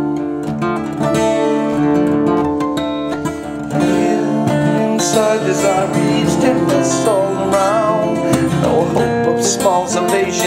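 Acoustic guitar strummed hard in a driving rhythm. About two-thirds of the way in, a man's voice starts singing over it.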